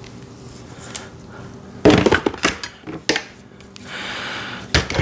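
Welding cables and their metal clamps being handled and uncoiled, knocking and clattering against each other and the bench, with a cluster of loud knocks about two seconds in and another sharp knock near the end.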